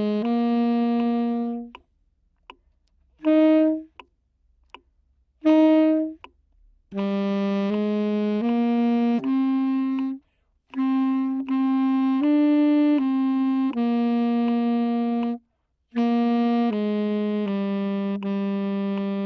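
Tenor saxophone playing a slow melody alone: a few held low notes, then a rest broken by two short notes, then a phrase of sustained notes with short breathing gaps between them.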